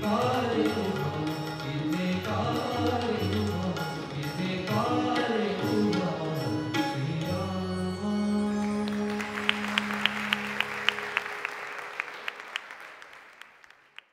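Closing bars of a live Marathi song: a gliding sung melody over tabla and keyboard, ending on a held chord about eight seconds in. Audience applause with sharp individual claps rises as the chord ends, then fades out.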